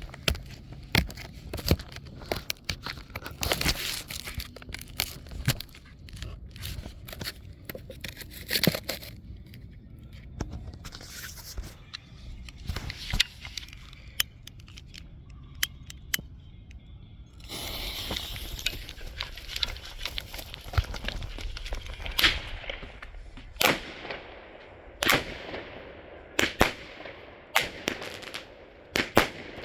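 A Legend Fireworks 200-gram fireworks cake firing a run of sharp shots, many followed by crackling. About two-thirds of the way through there is a dense stretch of crackle, and near the end come loud single reports a second or so apart, each trailing off in crackle.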